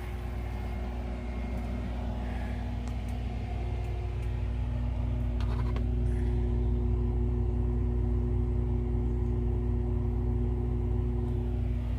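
A 5,000 BTU air conditioner running off an inverter: a steady mechanical hum with a low drone and a couple of steady tones, growing a little louder over the first few seconds, with a brief click about five and a half seconds in.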